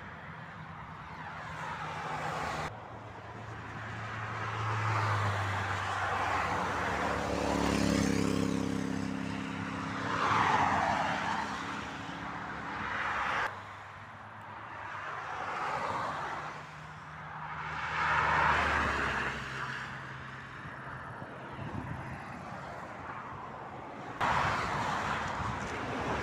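Motorway traffic: vehicles passing close by one after another, each swelling with engine and tyre noise and then fading. The sound breaks off abruptly a few times where the clips are cut together.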